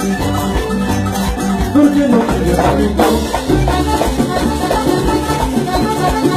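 A live vallenato band playing loudly through the stage sound system, with sustained melody notes over a driving bass line.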